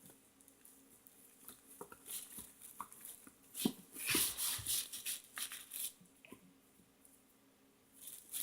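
A spoon stirring a wet, half-mixed flour-and-shampoo dough in a container: irregular squishing, scraping and small clicks, busiest in the middle.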